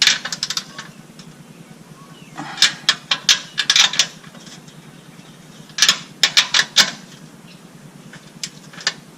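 Socket ratchet with a deep socket clicking in three short bursts of strokes, tightening the air compressor's mounting bolts, with a few single clicks near the end.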